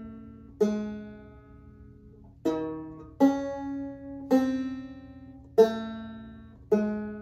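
Banjo played slowly: six plucked chords about a second apart, each left to ring and fade before the next.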